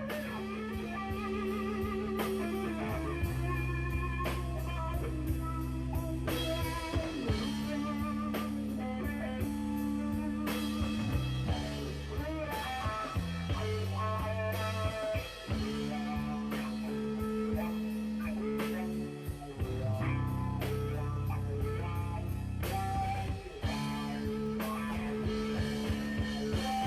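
Background music: a blues-rock track with guitar, bass and a steady drum beat.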